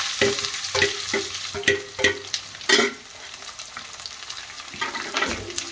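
Sliced onions sizzling in smoking-hot mustard oil in a kadai, with a quick run of metallic clinks and scrapes of a spatula against the steel cookware as the onions are scraped in and stirred. The sizzle dies down after about three seconds as the onions cool the oil.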